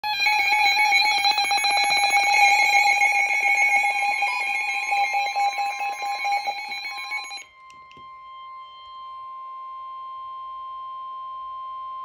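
Several NOAA weather radios sounding their alert alarms together for a severe thunderstorm warning, a loud mix of steady and pulsing electronic beeping tones. About seven and a half seconds in most of them stop, leaving the single steady 1050 Hz warning alarm tone of the weather radio broadcast sounding alone.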